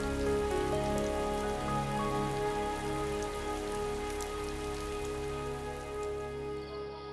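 Steady rain falling, over soft background music of long held notes. The rain cuts off shortly before the end and the music carries on.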